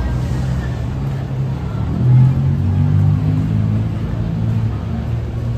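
Busy city street traffic: vehicle engines running, one louder and revving about two seconds in.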